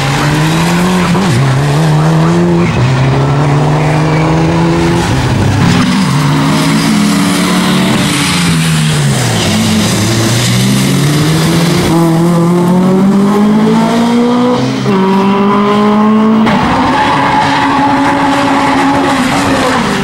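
Rally car engines at full throttle, among them a Mitsubishi Lancer Evolution and a Mk2 Ford Escort, their pitch climbing and dropping sharply at each gear change. Near the middle one engine's pitch falls away and then climbs again as the car slows for a corner and accelerates out.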